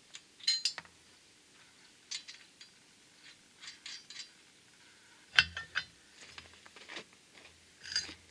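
Scattered metallic clinks and knocks, a few sharp taps with pauses between them and the loudest about five and a half seconds in: tools and steel parts being handled during arc-welding work.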